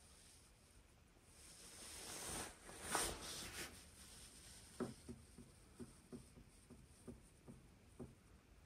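A wooden door being pushed open, scraping and rubbing for about two seconds and loudest about three seconds in, followed by a run of light knocks, two or three a second.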